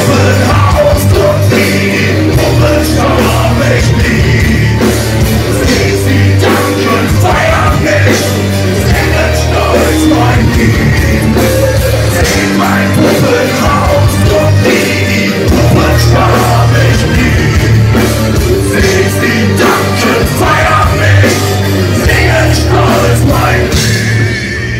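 A metal band playing live and loud: distorted electric guitars, bass guitar and a drum kit, with the singer's vocals over them.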